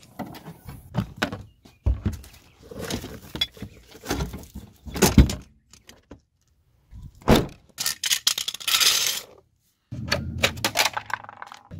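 Hands working on car parts: a run of knocks, clicks and rattles with short pauses between them, and a longer rustling scrape about eight seconds in.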